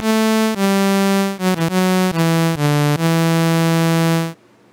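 Home-made C++ software synthesizer playing a short run of about eight low notes, keyed live from the computer keyboard, each with a bright, steady tone shaped by an attack-decay-sustain-release envelope. The notes change pitch at uneven intervals, include a quick pair about a second and a half in, and stop about four seconds in.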